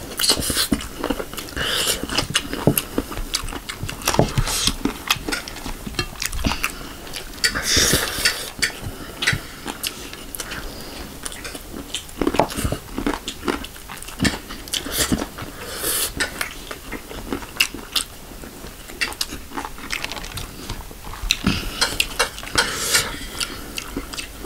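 Close-miked eating of a chicken drumstick and yellow rice with the hands: wet chewing with many sharp mouth clicks and smacks, and now and then fingers working rice on a steel plate.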